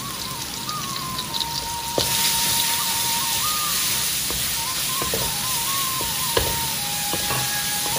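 Red chili paste and chopped chilies sizzling in hot oil in an aluminium wok. The sizzle gets louder about two seconds in, and a wooden spatula gives a few scrapes and knocks against the pan. A thin, wavering melody line plays over it.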